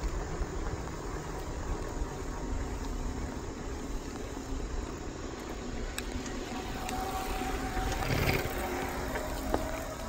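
Wind buffeting the microphone of a camera moving along at speed: a steady low rumble. A faint steady whine comes in about two-thirds of the way through.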